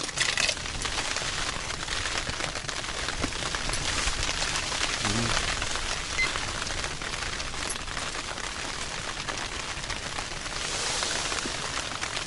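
Rain on the fabric of an ice-fishing tent, heard from inside: a steady, dense patter of small drops.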